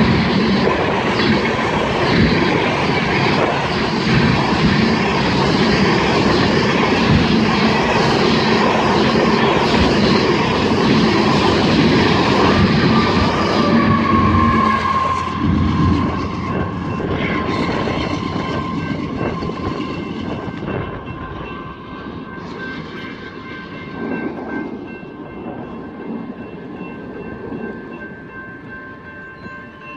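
Freight train of covered hopper cars passing close by at speed, steel wheels clacking over the rails. A locomotive goes by about halfway through, and then the rail noise fades steadily as the end of the train pulls away.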